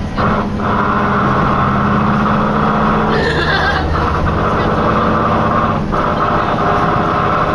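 Diesel railcar running at speed, heard from inside the passenger cabin: a steady drone of engine and running gear with a constant whine, and a brief louder rush about three seconds in.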